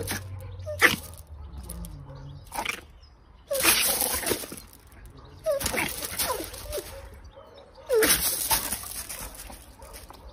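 A small puppy giving several short, high yelps that fall in pitch, while guarding a piece of meat from a much bigger dog. Three rustling bursts of about a second each come with them, from paws scuffing the gravel.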